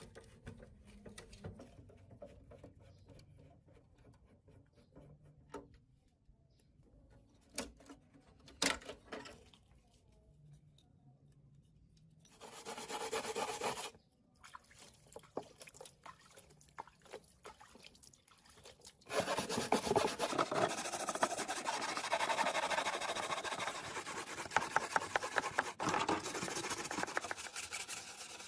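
Hand scrubbing against a hard surface: a short bout about twelve seconds in, then steady, dense scrubbing strokes from about nineteen seconds on. Scattered small clicks and knocks come before it.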